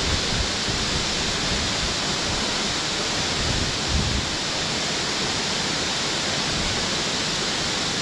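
Steady rushing of the Bambarakanda waterfall, about 360 metres tall, heard as an even, unbroken noise. Two brief low thumps on the microphone, near the start and about halfway.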